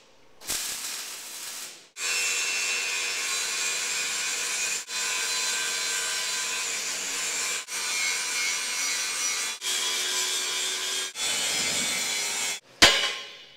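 Steady rasping machine noise in a steel fabrication shop, broken off and resumed abruptly every two to three seconds, with a single sharp bang near the end.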